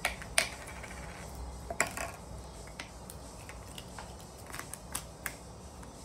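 Scattered sharp clicks and taps of a small clear plastic slime tub being handled and its lid pressed, the loudest about half a second in.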